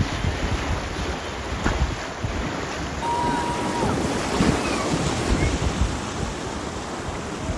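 Swollen river water rushing steadily, with wind buffeting the microphone.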